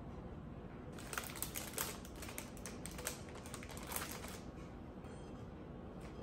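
Clear plastic flower wrapping crinkling and crackling as hydrangea stems are handled, in a quick irregular run of crackles that dies away about four and a half seconds in.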